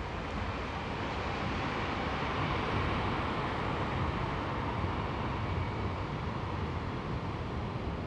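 Town ambience at night: a steady low rumble and hiss of distant traffic, swelling a little around the middle.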